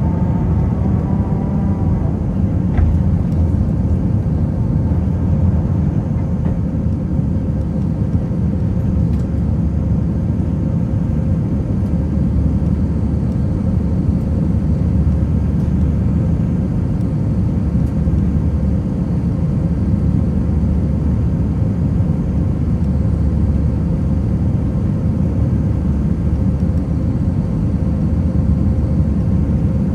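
Steady cabin noise aboard an Airbus A319 airliner: a constant deep rumble from the engines and airflow, with a faint steady hum above it.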